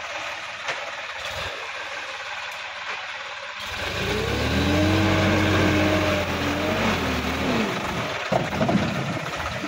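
Sonalika DI-50 RX diesel tractor engine revving hard under load as the tractor climbs out of a flooded field with its front wheels lifting. The engine note rises about four seconds in, holds high, and drops back near seven seconds, followed by a few sharp knocks.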